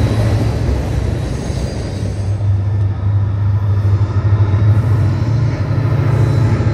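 Diesel freight locomotives running as the train moves over the bridge: a steady, loud low engine rumble, with the higher rail noise thinning out about two seconds in.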